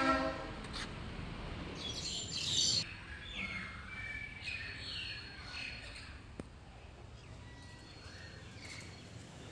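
Small birds chirping, a few short calls in the first half, over steady outdoor background noise. A horn-like tone cuts off just after the start.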